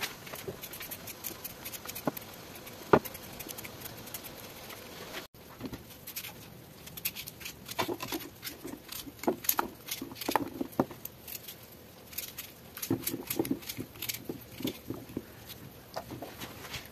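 A hand peeler scraping raw potatoes, with one sharp knock about three seconds in. After a break about five seconds in, a knife cuts the potatoes into chunks on a tray, giving a run of irregular sharp clicks and knocks as the blade goes through and taps the tray.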